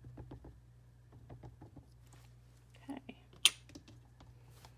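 Rapid light tapping as a rubber stamp is dabbed with an ink spot, then one sharp clack about three and a half seconds in.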